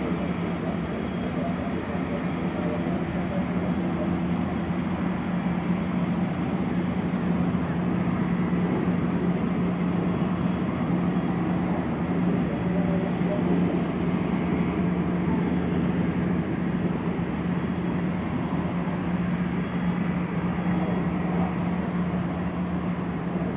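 Agusta A109E Power twin-turbine helicopter running on the ground with its rotors turning: a steady drone with one constant low tone that neither rises nor falls.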